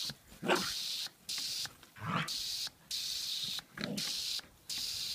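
A border collie barking three times, about a second and a half apart, as it chases a jet of water from a garden hose. Behind it the hose nozzle's spray hisses, cutting in and out about once a second.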